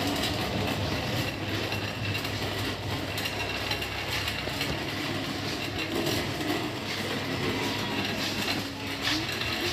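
A loaded shopping cart rolling across a supermarket floor, its wheels and frame rattling steadily.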